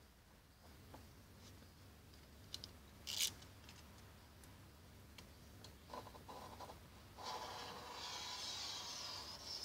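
Hands rubbing and scraping window tint film against a car's door glass as it is smoothed into place: scattered light ticks, one short sharp scrape about three seconds in, and a longer stretch of steady rubbing from about seven seconds in until near the end.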